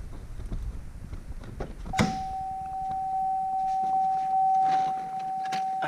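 A sharp click about two seconds in, followed by a steady, unbroken electronic warning tone that holds on.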